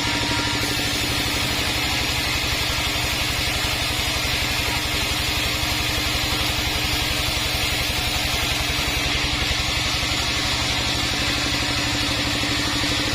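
Sawmill bandsaw machinery running steadily, with a fast, even low throb under a steady hum and hiss.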